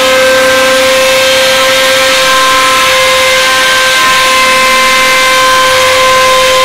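CNC router spindle running with a steady high whine over a constant hiss.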